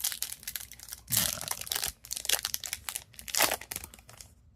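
Foil trading-card pack wrappers crinkling and tearing as packs are handled and opened, with two louder rips, one about a second in and one about three and a half seconds in.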